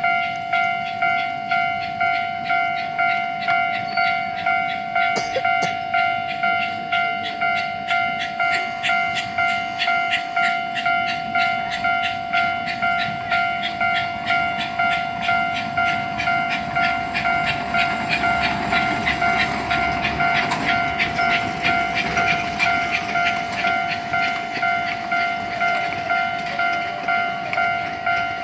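Level-crossing bell ringing in a steady repeated 'kan-kan' beat, about one and a half strikes a second. The miniature train's running noise swells under it for a few seconds in the middle.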